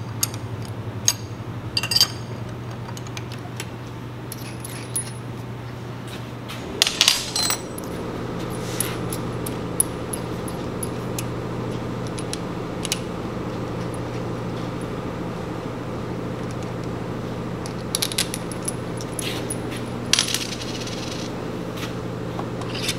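Scattered metallic clinks and taps of a hand wrench and a seal installer tool being unbolted and pulled off a diesel engine's front cover, with a busier run of clinks about seven seconds in and again near the end. A steady low hum runs underneath.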